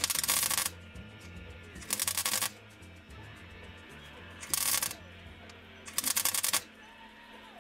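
MIG welder laying short stitch welds on car floor-pan steel: four bursts of crackling arc, each about half a second long with pauses between, over background music with a changing bass line.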